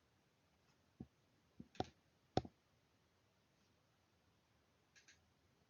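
Near silence broken by four short, sharp clicks about one to two and a half seconds in, the last the loudest, then a faint double click near the end.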